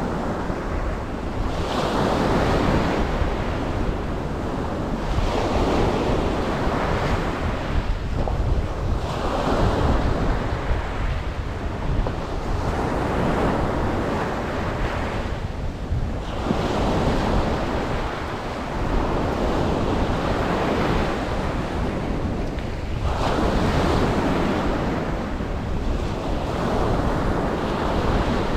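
Ocean surf breaking on a beach, the wash of each wave swelling and fading every three to four seconds over a constant low rumble.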